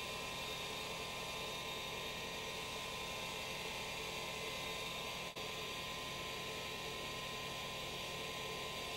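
Steady hum and hiss of the small electric motor and belt-driven spindles of a watchmaker's lathe grinding rig, running while the grinding bell cuts a sunburst finish into a watch ratchet wheel. The sound drops out for a moment about five seconds in.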